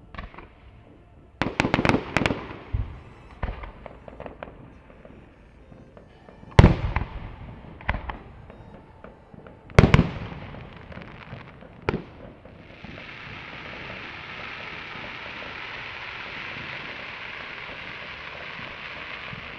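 Fireworks display: a quick run of shell bursts about one and a half to three seconds in, then single loud bangs about six and a half and ten seconds in and a smaller one near twelve seconds. From about thirteen seconds on comes a steady hiss while glittering stars fall.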